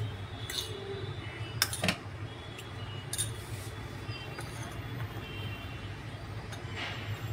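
Metal spoon clinking against a ceramic bowl of flour-and-water slurry as it is stirred and handled, a few sharp clinks with the loudest pair about two seconds in, over a steady low hum.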